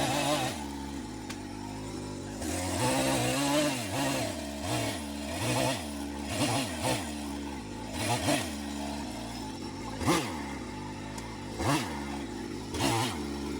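Chainsaw engine revved up and down over and over, its throttle blipped in short bursts about once every second or two, with one longer rev about three seconds in.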